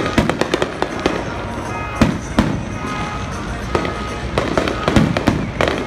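Fireworks going off in quick clusters of sharp bangs and crackles, with music playing underneath.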